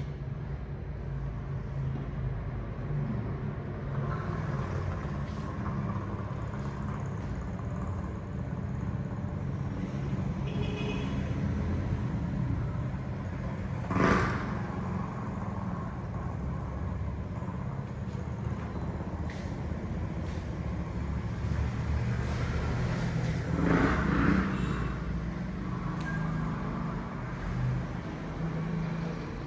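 Road traffic: a steady low engine rumble of passing vehicles, with a short sharp louder sound about halfway through and a longer louder swell a little later.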